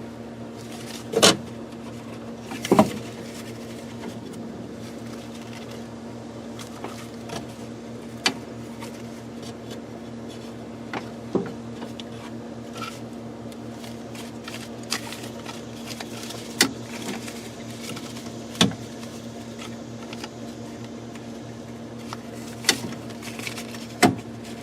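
Scattered sharp clicks and knocks of a Chevy pickup's interior door handle parts being snapped apart and fitted by hand, over a steady low hum.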